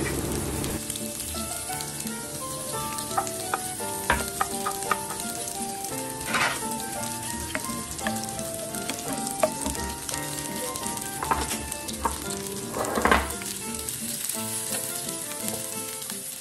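Hot oil sizzling steadily as food fries in a pan, with a few sharp clicks, under soft background music played as a melody of single notes.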